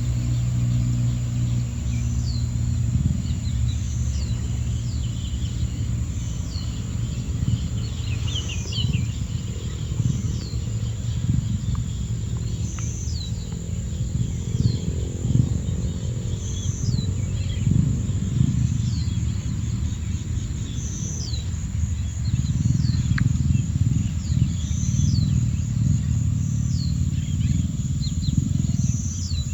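A bird repeating a short, high call that slides downward in pitch, roughly once a second, over a continuous low rumbling noise.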